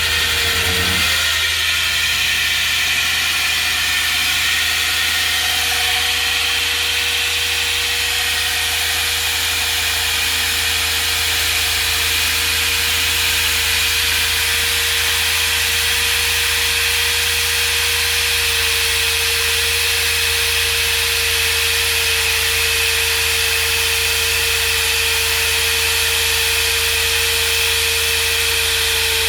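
Core drill running steadily as it bores a hole: a constant loud drone with a steady whine held at one pitch.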